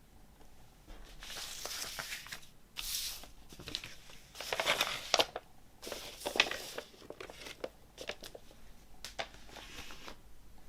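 Vinyl LP packaging crinkling and rustling as it is handled, in a series of uneven bursts with a few sharp ticks.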